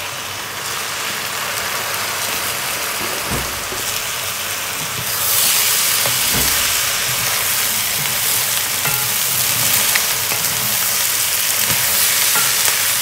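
Oil sizzling in a pot of frying spiced beans and dried shrimp as soaked, drained basmati rice goes in and is stirred. The sizzle gets louder about five seconds in, with a few light knocks from the stirring spoon.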